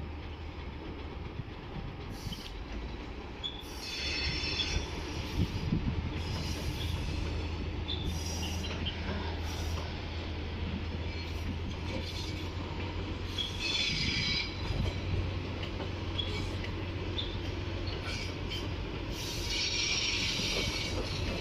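Cars of an ЭП2Д electric multiple unit rolling slowly past on the rails while towed unpowered, rumbling steadily with clicks over the rail joints. The wheels squeal in short high bursts several times, the longest near the end.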